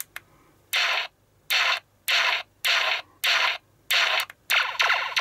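Electronic sound effect from a Playmates Deep Space Nine toy station, triggered by its button: a run of harsh, static-like bursts about two a second, running into a longer, faster crackling burst near the end.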